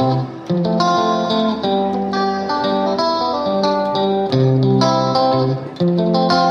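Background music led by plucked guitar notes in a steady rhythm.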